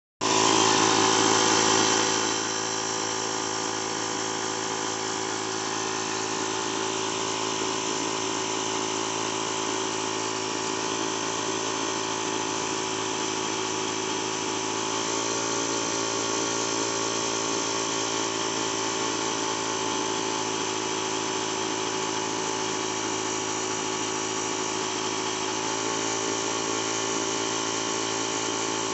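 Air compressor running steadily, a whining motor-and-pump drone that starts abruptly, is loudest for the first two seconds, then settles to a slightly lower even level.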